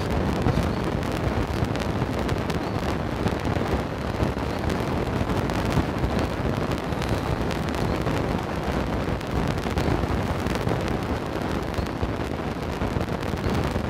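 Wind buffeting the phone's microphone: a steady low rush with frequent small crackles.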